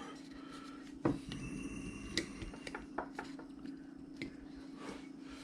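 Faint scraping and a few sharp ticks of a hand carving tool cutting into a wooden blank, over a steady low hum.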